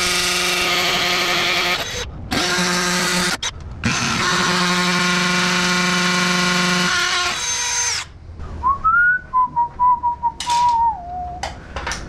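Cordless drill running with a long bit, a steady high whine in three runs: about two seconds, a short burst, then about four seconds, stopping about eight seconds in. Then a person whistles a short tune, with a few sharp clicks.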